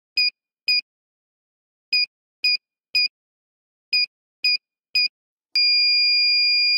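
Electronic alarm sounder giving short high beeps in groups of three, then switching to a steady unbroken high tone about five seconds in. It is sounded as the warning of an oxygen-deficiency monitor.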